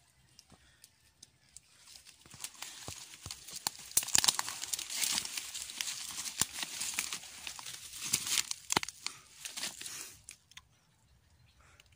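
Dry leaves and twigs crackling and snapping as someone pushes through dense undergrowth. It starts about two seconds in and dies away near the end.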